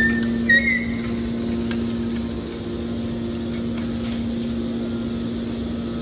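Hydraulic scrap metal baler's power unit running with a steady hum while the bale is pushed out, with a few short high squeals from the metal in the first second.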